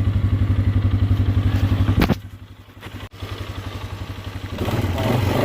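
Four-wheeler (ATV) engine idling with an even putter. The sound drops away sharply about two seconds in, after a click, then builds back up and gets louder near the end.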